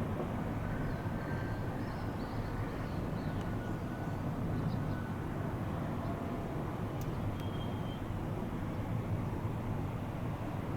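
Steady low outdoor rumble, like a distant vehicle or aircraft, with a few faint high bird chirps.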